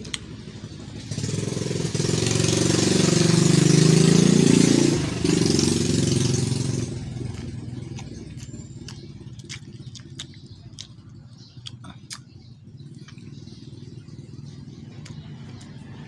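A motor vehicle drives past close by, its engine swelling to a peak about four seconds in and fading away by about seven seconds. After that come scattered light clicks and taps.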